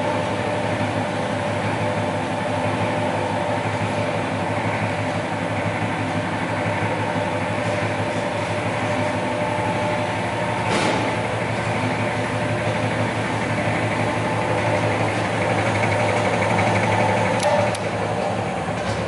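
SAFO DZJB 250 long-belt sander running, its motor and sanding belt giving a steady hum and whir. There is a single sharp click about halfway through. Near the end the control-panel switch clicks and the running sound drops a little.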